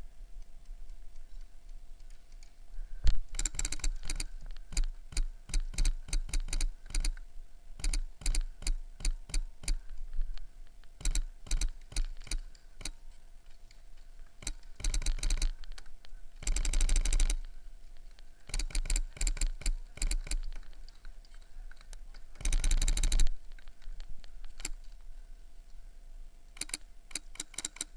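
Airsoft guns firing: quick strings of sharp, snappy shots, broken by three dense full-auto bursts, the longest lasting about a second.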